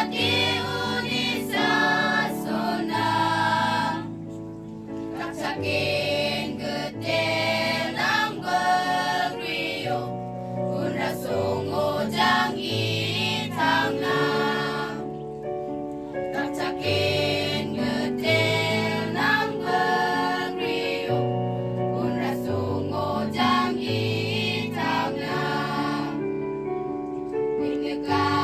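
A choir singing together, a slow song of long held notes in phrases with short breaks between them.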